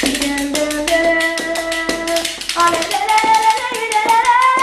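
A boy singing a manele tune unaccompanied, in long held notes that bend upward near the end, over a quick steady beat of hand claps.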